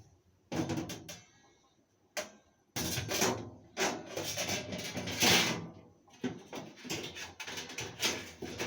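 Metal strainers and inner parts of a commercial dishwasher being fitted back in: a run of clanks, knocks and scraping rattles, loudest a little past the middle.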